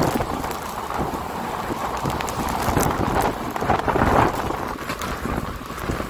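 Wind rushing over the microphone at the doorway of a moving passenger train in rain, over the train's running noise, with scattered raindrop ticks.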